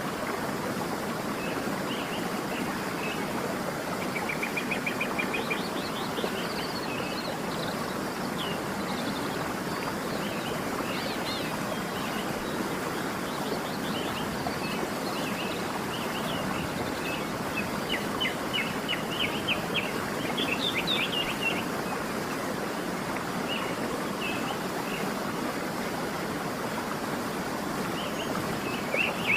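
Steady rush of a waterfall with birds chirping and trilling over it, in scattered short calls that come thickest a few seconds in and again past the middle.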